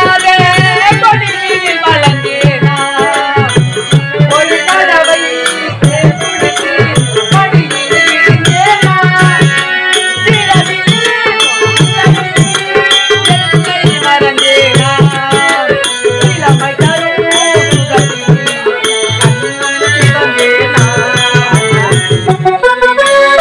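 Harmonium playing a melody over a steady mridangam beat.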